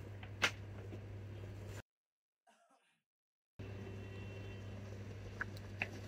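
Quiet workbench room tone with a steady low electrical hum and one sharp click about half a second in. The sound drops out to dead silence for about two seconds in the middle, then the hum returns with a couple of faint clicks near the end.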